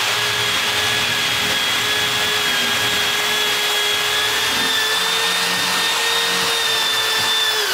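Corded high-speed drill running at full speed, driving a router-style morticer cutter into a door edge to cut a latch mortise. A loud, steady motor whine with a noisy cutting hiss.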